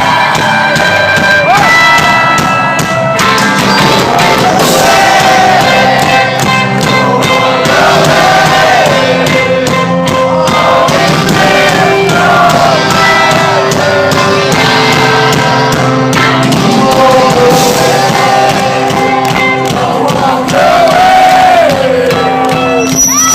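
Live amplified rock band playing loud and steady, with a lead vocal carrying a sustained, gliding melody, and crowd voices mixed in.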